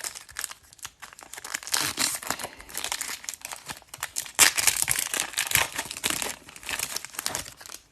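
A hockey card pack's wrapper being torn open and crinkled by hand, a dense run of crackling that is busiest in the middle seconds.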